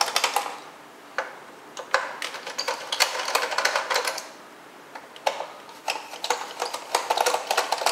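Phillips screwdriver backing screws out of a Roomba's plastic bottom faceplate, in five or so bursts of rapid clicking, each lasting under a second.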